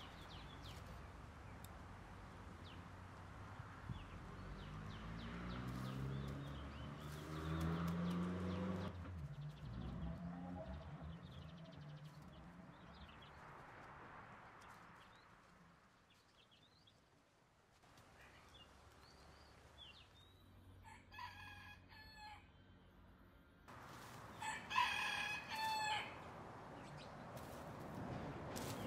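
A rooster crowing twice, about two-thirds of the way in and again soon after; the second crow is louder. Earlier comes a low hum that rises in pitch, over a faint outdoor background.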